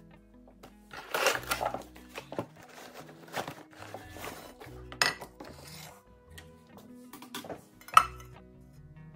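Cloth dust bag and cardboard box rustling as a ceramic-coated pan is unwrapped, followed by a sharp clink about five seconds in and a louder metallic knock about eight seconds in as the pan with its stainless steel handles is lifted out. Soft background music plays throughout.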